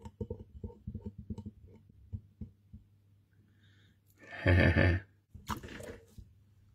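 Quick soft taps and handling noise over the first couple of seconds. About four and a half seconds in a man lets out a loud, exasperated exhale, with a shorter one just after.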